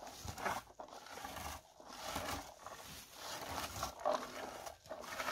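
Hand-held berry picker being combed through bilberry shrubs: irregular rustling and scraping strokes through the leaves and twigs.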